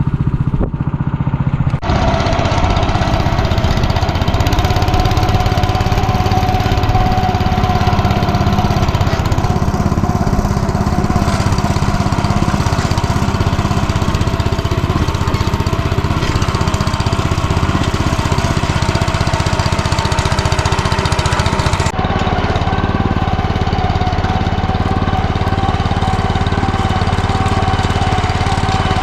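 Single-cylinder engine of a Belarus 09N walk-behind tractor running steadily at working speed, with two abrupt breaks, about two seconds in and again about 22 seconds in.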